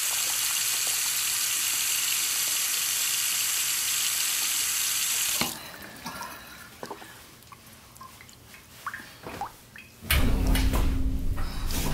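Water running steadily from a tap, shut off sharply about halfway through, followed by a few faint clinks and knocks. Near the end a much louder low rumble with a steady hum sets in.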